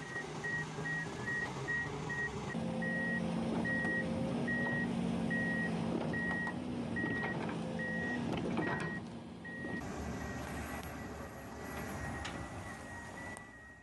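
A heavy machine's reversing alarm beeping rapidly and evenly, with its engine running underneath. The beeps become faint after about ten seconds.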